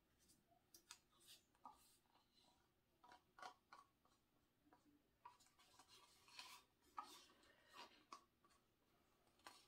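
Near silence, broken by faint, scattered short scrapes and clicks from a wooden craft stick scraping the last red acrylic paint out of a plastic cup.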